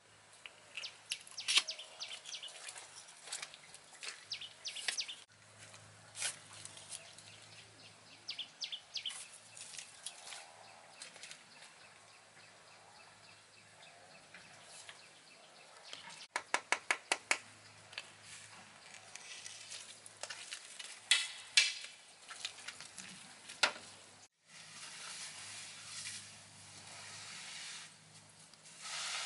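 A steel trowel and hand tools scraping and smoothing wet concrete in short, irregular strokes. A quick run of about eight sharp taps comes in the middle, and a steady hiss near the end.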